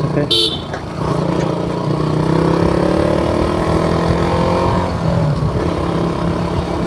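KTM Duke 200's single-cylinder engine running as the motorcycle is ridden, its pitch rising steadily from about two seconds in as it accelerates, then settling.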